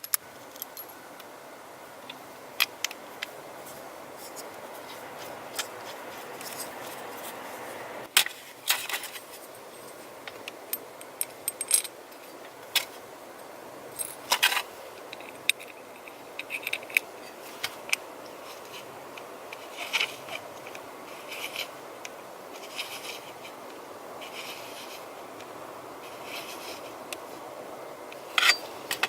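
Small metal parts and hand tools clinking and scraping: irregular sharp clicks, some in quick clusters, over a steady background hiss.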